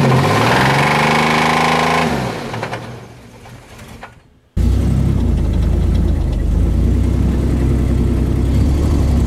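Blown GM 4.3-litre V6 van engine revved with the hood open: the pitch rises and holds for about a second, then drops away and fades out over the next two seconds. After a sudden cut, the same engine runs with a steady low drone, heard from inside the cab while driving. It has no compression and is semi-blown.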